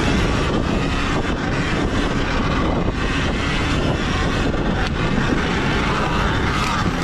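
Sur-Ron Ultra Bee electric dirt bike ridden fast on a dirt trail: a steady rush of wind on the bike-mounted camera's microphone, mixed with tyre, chain and suspension noise.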